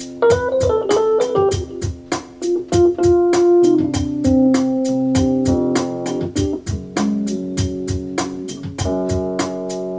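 Keyboard instrumental: sustained organ-toned chords and a moving melody over a steady percussion beat of about four hits a second.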